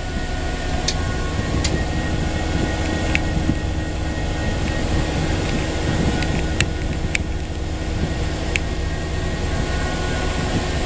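Steady rumble in the cab of a WDP4 diesel locomotive, its EMD 16-cylinder two-stroke diesel engine running, with a faint steady whine over it and a few sharp clicks scattered through.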